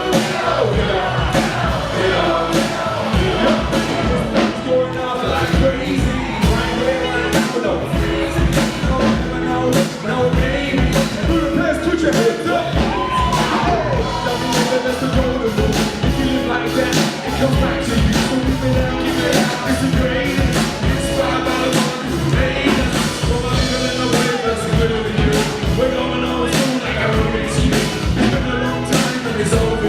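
Live pop music with singing over a steady driving beat.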